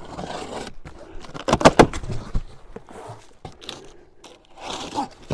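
Cardboard packaging being opened and handled: scraping and tearing, with a quick cluster of sharp knocks about a second and a half in and a rustle near the end.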